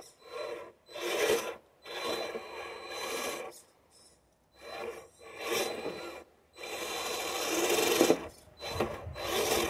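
Crunching and scraping in snow, in irregular bursts of half a second to about a second and a half with short gaps between them.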